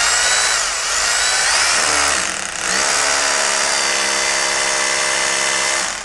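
Hyundai 20 mm SDS Plus rotary hammer in hammer-drill mode boring a hole into a wall with a masonry bit. It eases off briefly about two seconds in, then runs steadily again and stops right at the end.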